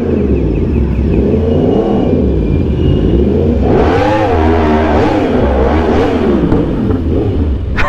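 Yamaha R1M's crossplane inline-four through an Austin Racing exhaust, revved several times, its pitch rising and falling with each blip. The longest and highest rev comes about four seconds in.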